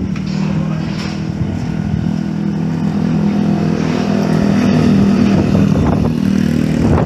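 A small engine running steadily with a low hum, under a noisy rushing haze.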